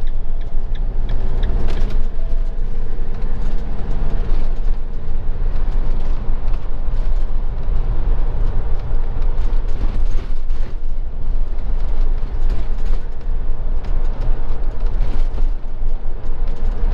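Motorhome driving on town roads, heard from inside the cab: a steady low engine and road-noise drone with scattered light clicks and rattles.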